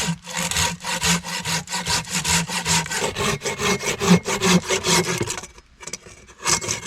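Rhythmic back-and-forth rasping strokes of a hand tool, about three a second, which stop briefly about five and a half seconds in and then start again.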